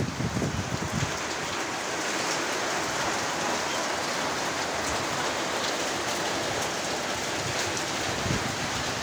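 Heavy typhoon rain pouring steadily, driven by strong wind.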